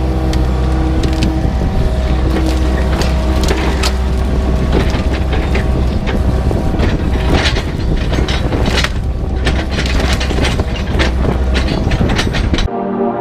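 Excavator's diesel engine running steadily under load, with many sharp cracks and knocks over it as the machine works. Near the end the engine sound cuts off abruptly.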